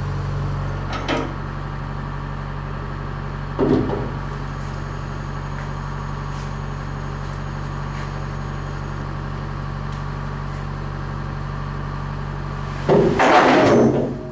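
Crane engine running steadily at a low drone, with a couple of short knocks about a second and about four seconds in and a louder clatter near the end as the telescope tube is worked onto its mount.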